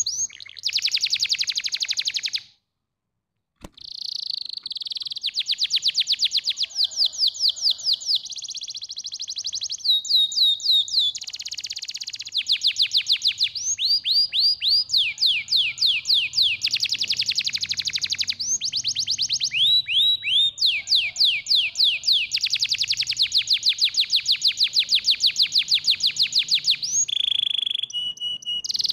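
Domestic canary singing a long song made of rapid trills of repeated notes, with phrases of downward-sweeping whistles in between. The song cuts out completely for about a second, near three seconds in, then carries on.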